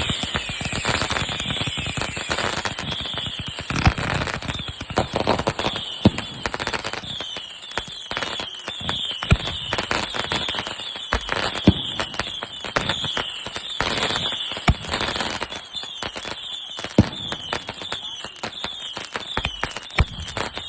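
Fireworks going off: a rapid, unbroken string of sharp bangs and crackling, with about a dozen louder bangs standing out. Short high falling tones repeat through it.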